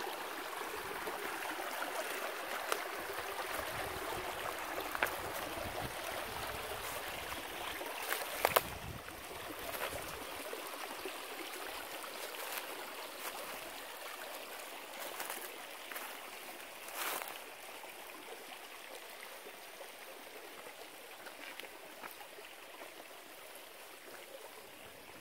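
Shallow creek running and trickling over rocks, a steady rush that grows fainter toward the end, with a few sharp clicks and knocks of steps on stones.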